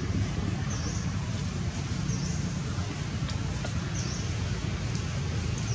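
Outdoor ambience: a steady low rumble with short, high-pitched chirps, each a quick rise and fall, repeating about every one and a half seconds, four times.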